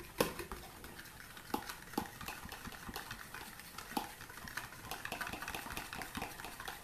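A utensil stirring a runny homemade banana, egg and yogurt mixture in a bowl, with irregular clinks and scrapes against the bowl and a few louder knocks.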